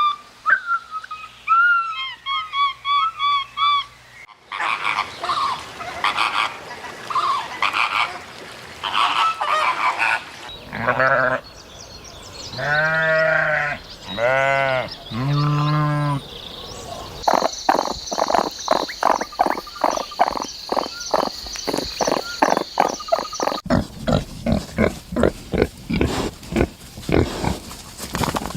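A run of different animal calls, one after another: short repeated chirping notes first, then three long, wavering calls in the middle, then fast, evenly spaced rattling pulses in the last third.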